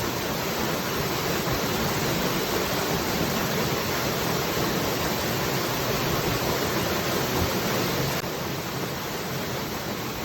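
Water falling steadily, an even rushing hiss with no distinct drops or splashes; the sound dips slightly in level about eight seconds in.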